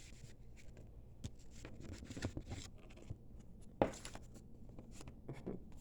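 Tarot cards being handled: light rustling and scattered soft taps, with one sharper tap about four seconds in.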